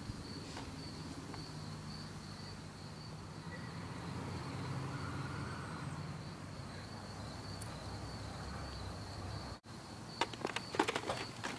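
Crickets chirping in a steady, high, even trill. Near the end comes a quick run of sharp clicks and knocks.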